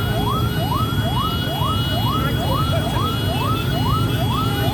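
Emergency-vehicle siren sweeping rapidly upward in pitch over and over, a little more than twice a second, over the low rumble of engines in jammed traffic.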